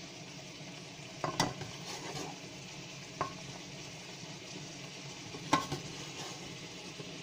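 Steel serving spoon clinking and scraping against the cooking pot and plate while curry is scooped out, a few sharp clinks, the loudest about a second and a half in and again about five and a half seconds in, over a steady hiss.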